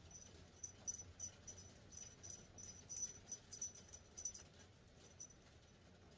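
Faint jingling of a small bell on a feather wand cat toy, shaken in quick, irregular bursts as the wand is waved. It stops about a second before the end.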